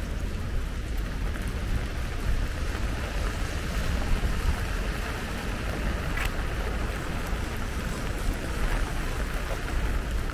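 Steady rain falling, an even hiss with scattered ticks of drops, over a constant low rumble; one sharper tick about six seconds in.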